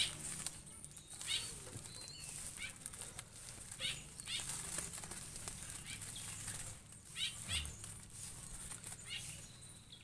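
Young zebra dove flapping its wings in several brief flutters against the hands holding it.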